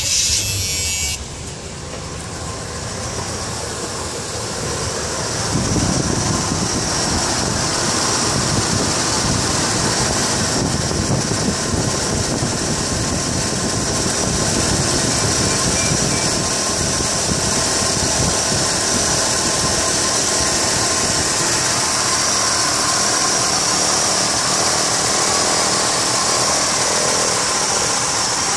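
Chevrolet Impala engine just started and idling steadily. It gets louder about five seconds in, when heard close up under the open hood.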